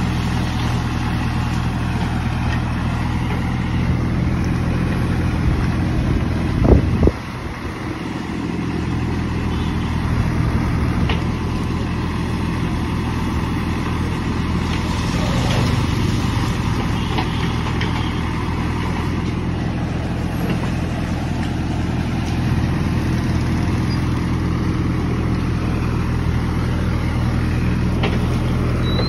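Kirloskar diesel engine of a JCB 3DX backhoe loader running steadily at a low, even pitch as the backhoe digs. A brief loud knock comes about seven seconds in.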